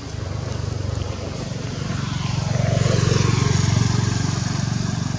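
Engine of a passing motor vehicle, growing louder to a peak about three seconds in and then starting to fade.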